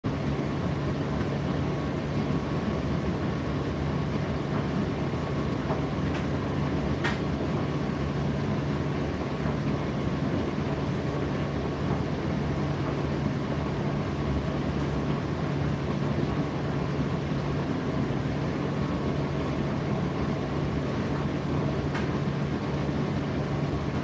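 Indesit IDC8T3 8 kg condenser tumble dryer running mid-cycle: a steady low hum over an even whirring of the turning drum and fan, with a few faint clicks, the clearest about seven seconds in.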